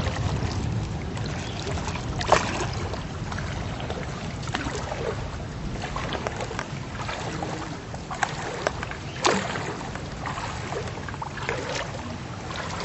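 Floodwater sloshing and splashing, with a few sharper splashes or knocks and wind buffeting the microphone.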